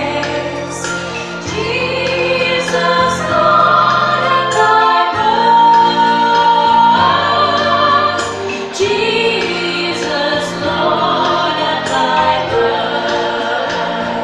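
A group of voices singing a Christmas carol together, with sharp percussive beats keeping a steady pulse.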